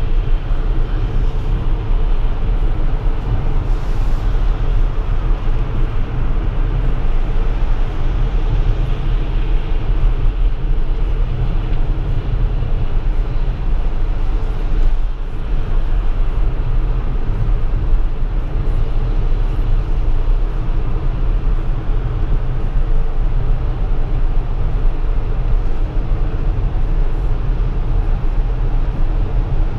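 Steady road noise inside a Tesla electric car's cabin at highway speed on rain-wet pavement: tyres on the wet road with a low rumble and a hiss, and no engine note.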